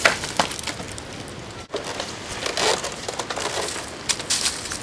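Dry coconut palm fronds crackling and rustling, with a run of sharp cracks.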